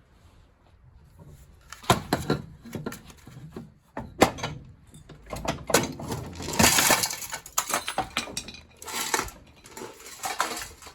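Metal parts of a gas combi boiler being worked loose and handled: a run of irregular clinks and knocks, with two longer stretches of scraping in the second half.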